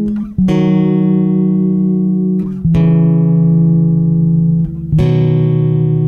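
Background music: slow, sustained guitar-like notes, with a new note struck three times, about every two and a half seconds.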